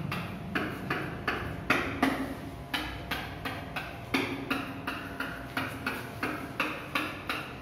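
Marker pen drawn across a whiteboard in quick, short strokes, about three a second, as a ring of curved lines is sketched.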